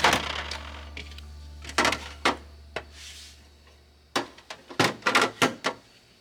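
Light clacks and knocks of hard objects being handled and set down: a few spaced knocks, then a quick run of about six near the end, while background music fades out.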